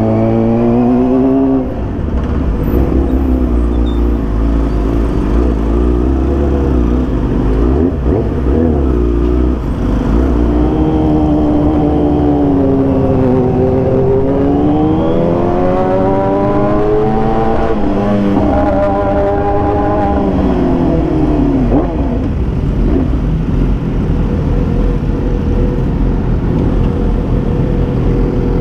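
Supersport motorcycle engine under way, its pitch climbing, dropping sharply about two seconds in, then rising and falling several times as the rider accelerates and eases off, and running steadier near the end. A steady low rumble lies underneath.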